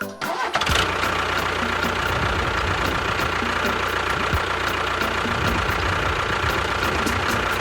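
A small motor running steadily with a constant high whine, starting up a moment in.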